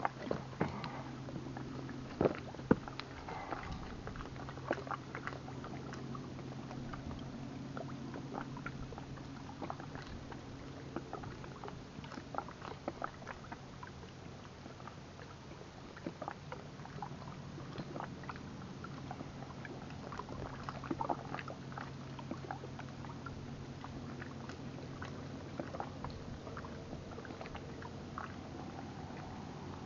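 Low steady hum of a distant motorboat on the lake, with many small clicks and taps scattered through.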